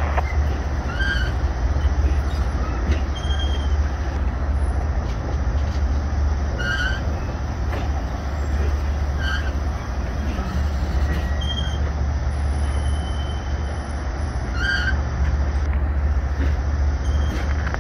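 Streamlined stainless-steel passenger cars of a train rolling past close by: a steady rumble of wheels on the rails, with short high-pitched chirps every few seconds.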